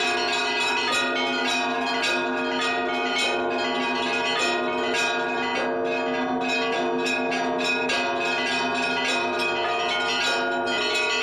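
A peal of several church bells ringing together: rapid, repeated strikes of the smaller bells, about three a second, over the sustained ringing of the larger ones.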